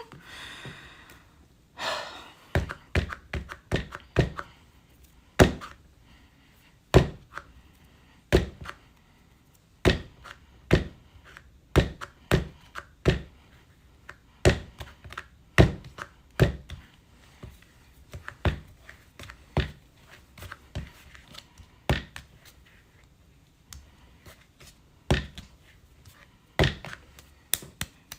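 A lump of clay thumped down hard onto a work surface again and again, being wedged or slammed flat for slab building: dull thuds at an uneven pace, about one a second.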